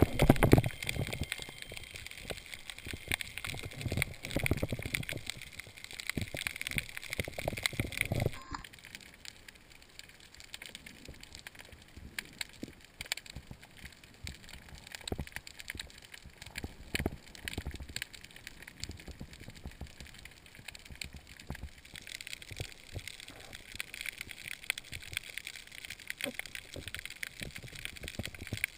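Underwater sound picked up by a camera in its housing: water churning and sloshing near the surface for the first eight seconds or so, then, after a sudden cut, a quieter underwater hiss with many scattered faint clicks and crackles.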